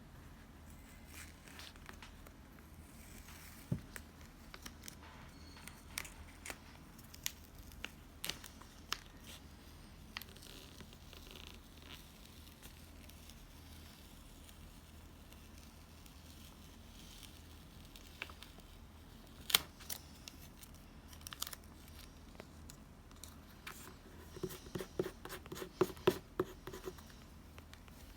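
Paper and stationery being handled while laying out a journal page: scattered small taps and clicks, with a quick run of crackly snips and crinkles near the end.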